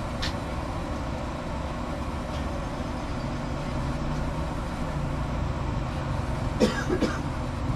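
A 400cc four-wheeler's engine running steadily in the yard, its low hum growing a little louder about three seconds in.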